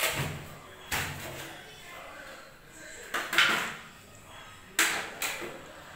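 Hard knocks and clatters from an old toilet's fittings being worked by hand at the cistern pipe, about five sharp strikes spread out, the loudest just over three seconds in.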